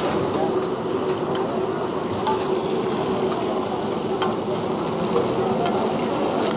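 Busy fish-frying stall: a steady buzzing hum with a dense sizzle-like hiss of frying, and scattered light clicks of metal utensils.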